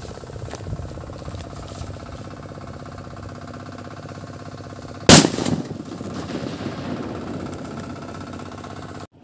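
A small homemade firecracker (paputok) going off with one loud, sharp bang about five seconds in, after several seconds of steady low hiss while the fuse burns down.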